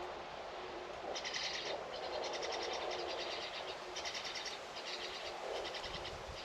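A bird calling in a run of short, rapid trilled phrases with brief gaps between them, starting about a second in, over a steady low background hum.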